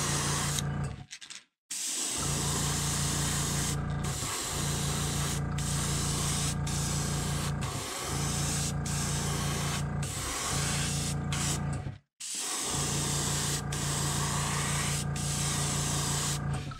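Airbrush spraying gold paint onto a fishing lure: a steady hiss of air and paint with a low hum under it. The spray cuts out briefly twice, about a second in and again near 12 seconds.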